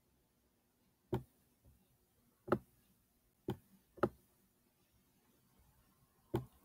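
Five short, sharp clicks of a computer pointer button, spaced irregularly a second or so apart, as bookmarks are picked up and dropped during drag and drop.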